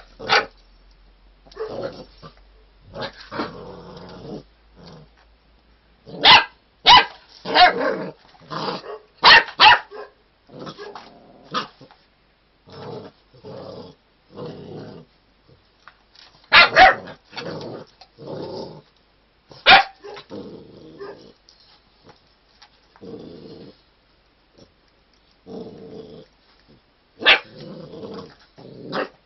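Saint Bernard puppy growling in short bursts, broken by a few loud, sharp barks at irregular intervals.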